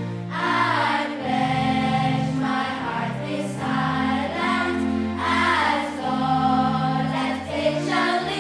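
Background music: a choir singing a slow, sustained song over steady low accompaniment.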